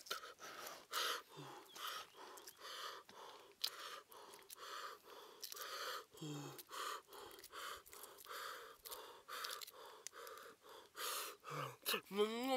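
A man's quick, breathy puffs, about two a second, as he blows on a hot ash-roasted egg and his fingers while peeling it, with a few short low hums in between.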